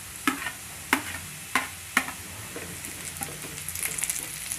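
Sliced onions going into a frying pan of potatoes frying in hot oil: several sharp knocks of utensils against the pan in the first two seconds, then stirring, with the oil crackling and sizzling near the end.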